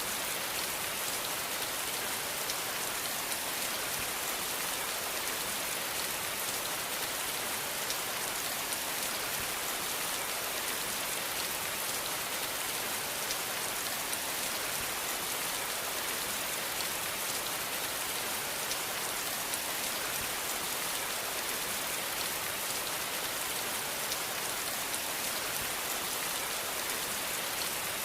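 Steady rain falling, an even hiss dense with fine drop patter, with no thunder.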